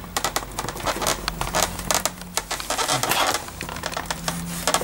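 Hard plastic clicking, scraping and creaking as old plastic fasteners are forced out of the holes in a Mercedes R129 door panel's trim strip by hand. It is a dense run of irregular clicks.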